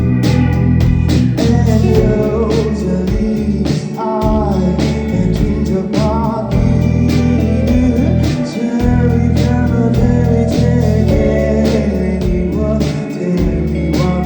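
A live band playing a song, with drums keeping a steady beat under bass, guitar and keyboard parts.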